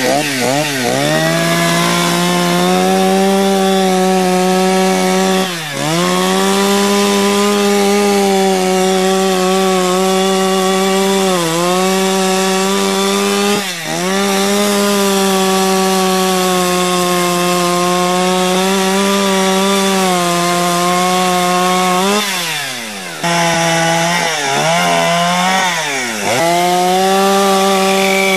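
Two-stroke chainsaw running at high revs while carving wood. Its pitch dips and climbs back several times, most sharply about 6, 14 and 22 to 26 seconds in.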